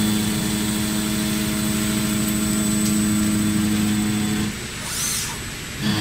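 WFL M60 MillTurn CNC mill-turn machine running, a steady mechanical hum and whine from its spindle and drives. It drops away for about a second near the end, with a short high chirp, then comes back.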